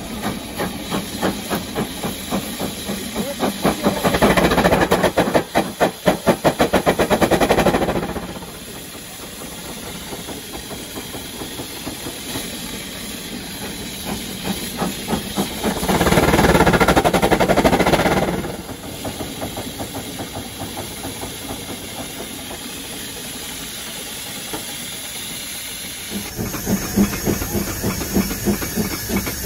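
Steam rotary snow blower R12 working in hard spring snow: its steam engine exhausting in rapid, even beats with hissing steam, swelling twice to loud stretches of steam. Near the end the sound changes to a steam locomotive's chuffing heard from its cab.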